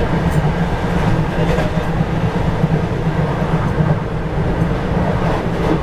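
KRL electric commuter train running along the track: a steady, deep rumble of wheels on rails, heard from inside the front car.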